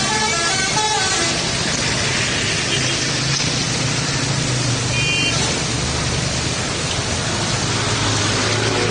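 A truck's telolet musical horn plays its changing multi-note tune, which stops about a second in. Steady traffic noise with a low engine hum follows, broken by a brief high horn-like tone around the middle.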